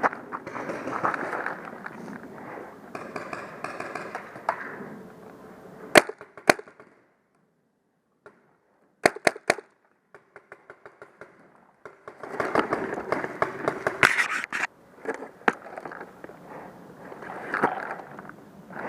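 Paintball markers firing: two sharp pops about six seconds in, a quick burst of three around nine seconds, then a rapid string of fainter shots. Scuffing and rustling from the player's movement fill the gaps, with a few more sharp cracks near the end.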